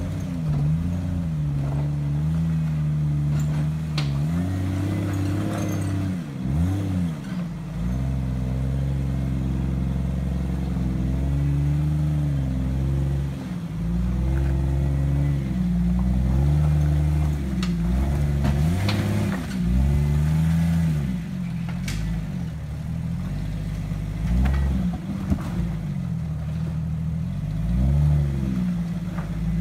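Jeep rock crawler's engine revving up and falling back over and over under load as it climbs over boulders, with a few sharp knocks along the way.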